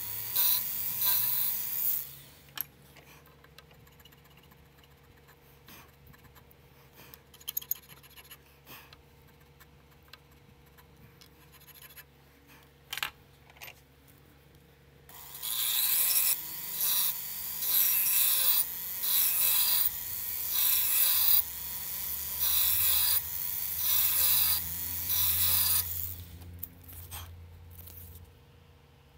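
Hand checkering tool rasping across a 1911 pistol grip panel as the lines are cut: a couple of seconds of strokes, a long quiet stretch with a few small clicks, then from about halfway a run of about ten even strokes, roughly one a second, that stops a few seconds before the end.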